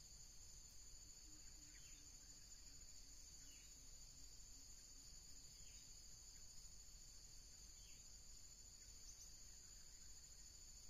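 Faint, steady high-pitched insect drone, with short falling chirps repeating every couple of seconds.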